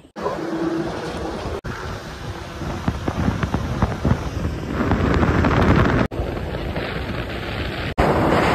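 Wind rushing over the microphone of a moving scooter, with road and traffic noise underneath; the sound drops out abruptly several times at edit cuts. It is loudest about five seconds in and again near the end, where a truck is being passed.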